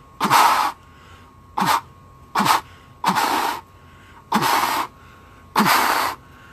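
Goose call blown in spit notes: six breathy, spitting bursts, each starting with a short falling pop. Some are clipped short and others are drawn out into a spit moan.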